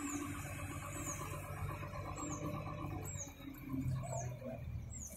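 Mobile crane's diesel engine running steadily with a low hum. Short high chirps, falling in pitch, repeat every half second to a second over it.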